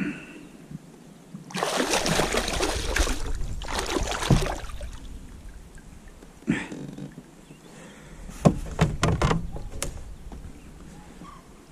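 A small hooked pike splashing at the surface beside a kayak as it is handled and unhooked, for about three seconds, then a quick run of sharp clicks and knocks a few seconds later.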